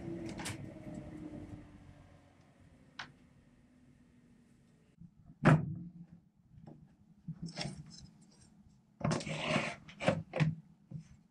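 Table saw blade coasting down after being switched off, its hum falling in pitch and fading out within the first two seconds. Then a sharp knock, a loud thud about five and a half seconds in, and knocks and rattles near the end as a board is fitted into a crate frame.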